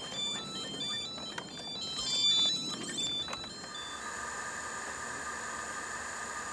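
Many overlapping short electronic beeps at shifting pitches from a field of show drones powering up as their batteries are connected, giving way about three and a half seconds in to a steady high electronic tone.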